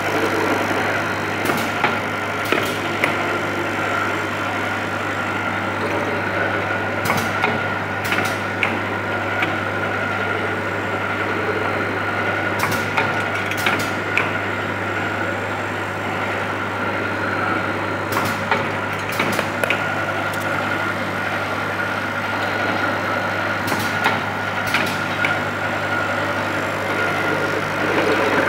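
Fully automatic tapping machine running with its vibrating linear feeder and indexing table: a steady low hum and a steady high whine, with sharp clicks and knocks every second or so as metal parts are fed, indexed and tapped.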